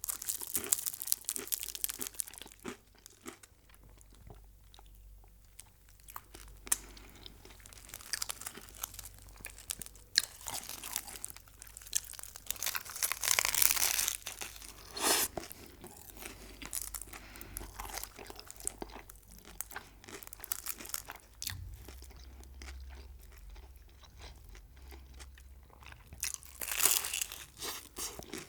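Close-miked eating: a person biting into and chewing crunchy food, with scattered crisp crunches and louder spells about halfway through and near the end.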